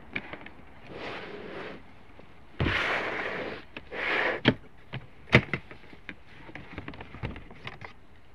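Rustling and handling noises as papers and belongings are rifled through: a few rustling bursts, the longest about a second, among sharp clicks and knocks, the loudest knock about five seconds in.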